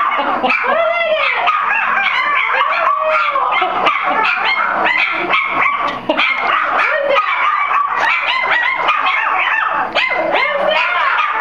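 A litter of four-week-old Soft Coated Wheaten Terrier puppies howling and yipping together, many high voices rising and falling over one another without a break.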